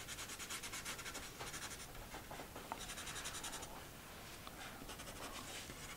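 Faint scratching of a graphite pencil on drawing paper, shaded in quick short strokes to darken a line. The strokes come in spells and stop a little past halfway.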